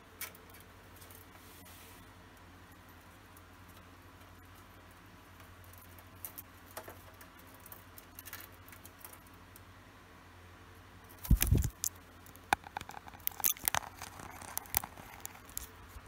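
A cockatiel's beak and feet tapping and scratching on a plastic toy house: scattered light clicks, a louder bump about two-thirds of the way in, then a quick run of clicks and taps.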